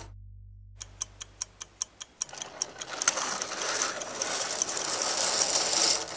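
A curtain being drawn closed along its rail: a quick run of clicks starting about a second in, then a steady hiss with scattered clicks as it slides across.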